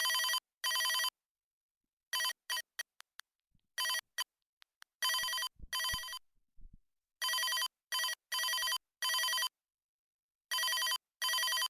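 Chicco Globetrotter toy telephone's electronic ring: pairs of short ring bursts repeating, broken in places by stuttering fragments that cut in and out, the glitching of a faulty toy. A few low thuds sound in the middle.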